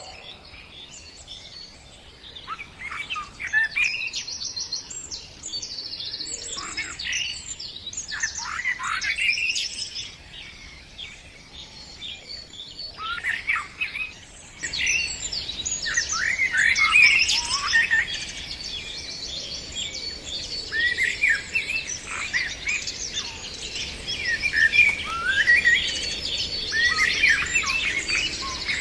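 Many birds chirping and singing at once, overlapping short quick notes and trills. The chorus grows fuller and louder about halfway through.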